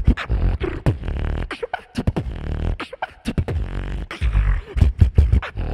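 Solo beatboxer performing into a microphone: a fast rhythm of sharp drum-like hits over a low bass.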